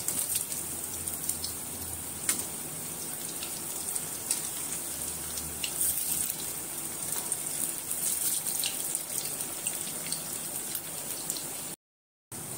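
Sabudana vadas deep-frying in hot oil in an iron kadhai, a steady sizzling hiss, with occasional light clicks of a steel spatula against the pan as they are turned. The sound cuts out briefly near the end.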